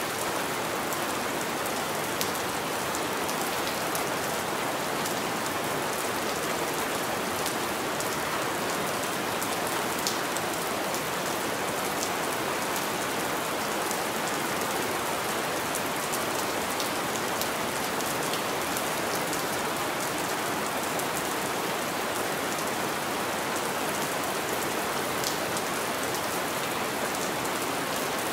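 Steady rain on window glass, with scattered sharper ticks of single drops hitting the pane.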